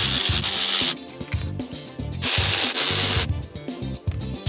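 Cordless electric ratchet running in two bursts of about a second each, at the start and a little past halfway, backing out the bolts of the balance shaft chain guides and tensioner on an Ecotec engine. Background music plays underneath.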